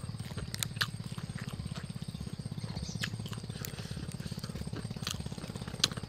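Dry raw noodles crunching as they are bitten and chewed: a few sharp, irregular cracks. Under them runs a steady low drone with a fast pulse.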